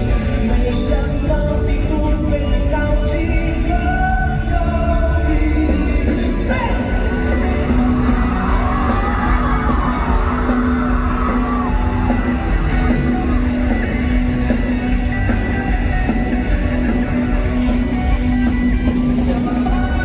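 Live rock band playing a song with a male lead vocal, loud and continuous, heard from among the audience in a large hall.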